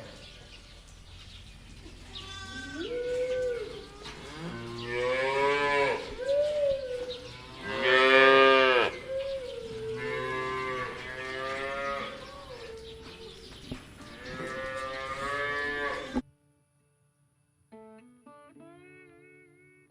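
Cattle mooing, about five long calls in a row that bend up and down in pitch, the loudest about eight seconds in. The mooing cuts off suddenly a few seconds before the end, and a faint plucked-guitar tune follows.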